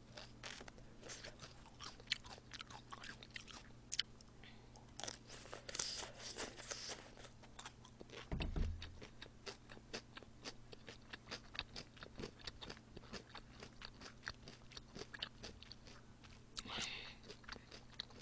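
A person chewing a mouthful of cold shredded-vegetable and chicken salad close to the microphone: many small wet crunches and mouth clicks. A single low thump comes a little past halfway.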